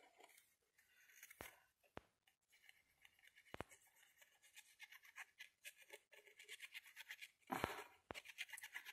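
Faint scratchy rubbing of a liquid glue bottle's tip dragged along paper, with a few small ticks of paper being handled.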